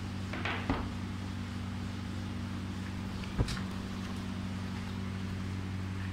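Steady electrical hum of a uPVC vacuum membrane press running, with two short knocks: one under a second in and a sharper, louder one about three and a half seconds in.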